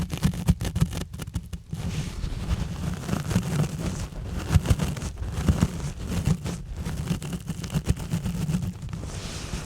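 Exfoliation gloves rubbing and scratching directly on a bare microphone: dense, irregular scratchy crackles over a heavy low rumble from contact with the mic.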